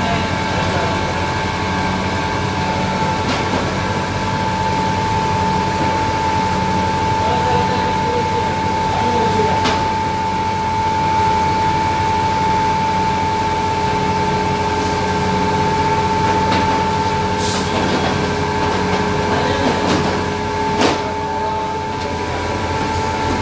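Continuous namkeen fryer and extruder machine running: a steady motor and conveyor drone with a constant high whine over a low hum, and a few brief sharp clicks.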